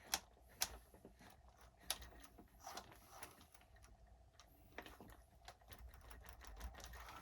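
Scattered light clicks and taps of hands handling an RC truck's plastic and metal parts, irregular and spaced out, over near silence.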